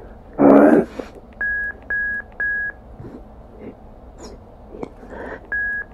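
Divinity Box ghost-box app playing through a speaker: a brief voice-like fragment about half a second in, then three short high beeps in quick succession and a fourth near the end, over a steady hiss with scattered clicks.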